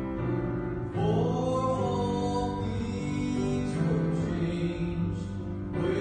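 A man's solo voice singing a gospel song with vibrato over piano accompaniment; a few piano notes sound alone first and the voice comes in about a second in.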